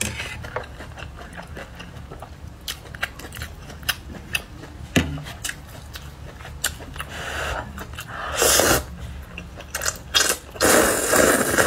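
Close-up eating sounds of glass noodles in hot and sour broth: chewing and sharp little clicks, then loud slurps of noodles being sucked in, a short one about eight seconds in and a longer one starting about ten and a half seconds in.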